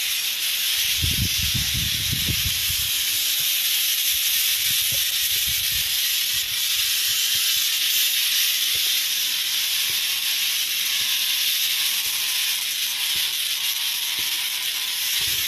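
A loud, steady high-pitched hiss throughout, with low rumbles about a second in and again around five seconds in.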